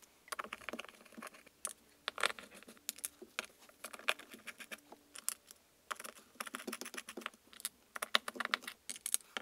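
Irregular small clicks and taps of screws and a screwdriver on the plastic drain of a shower pan as the drain's screws are set. The clicks are uneven in timing and loudness.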